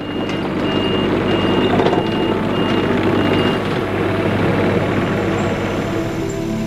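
Mini excavator's diesel engine running, with its backup alarm beeping six times, evenly spaced over the first three and a half seconds, while the machine travels on its rubber tracks.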